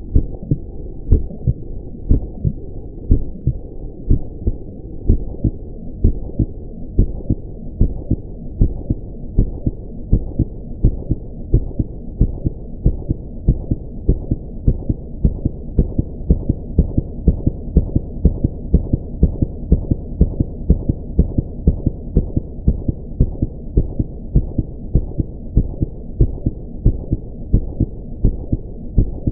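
Heartbeat sound effect: regular low thumps beating steadily over a low hum.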